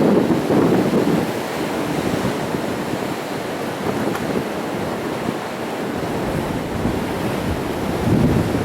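Sea waves breaking on rocks: a continuous wash of surf that swells louder in the first second and again near the end.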